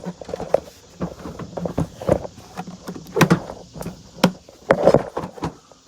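Hard plastic clicking and knocking from a car headlight assembly being handled as the bulb socket's twist-lock knob is fitted back in, with sharper knocks about three, four and five seconds in.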